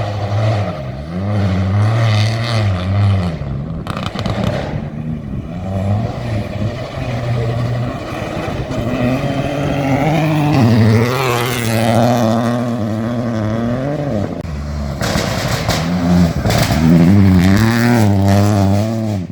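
Peugeot 208 Rally4's turbocharged three-cylinder engine driven hard, the revs climbing and falling again and again as it accelerates, lifts and changes gear.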